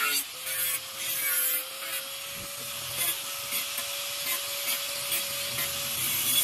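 Angle grinder with a thin cut-off disc running with a steady whine while cutting through square steel pipe. The cutting hiss rises and falls as the disc bites into the metal and eases off.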